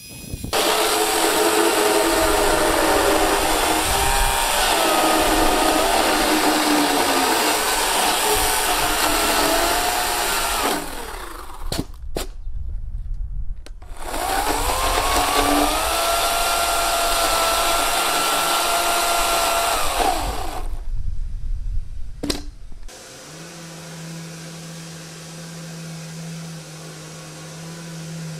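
EGO 56V battery chainsaw with a 14-inch bar cutting through a weathered Douglas fir beam, in two runs of about ten and six seconds. Its whine rises as the chain spins up and drops when it stops. Near the end a quieter, steady hum from another machine takes over.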